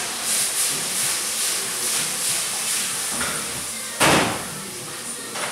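Kitchen noise: a steady hiss of food frying with light scraping of utensils, then a single sudden loud knock about four seconds in that dies away quickly.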